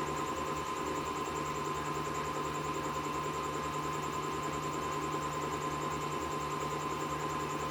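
Samsung washing machine running with a steady hum, a thin constant whine and a low pulsing rumble underneath.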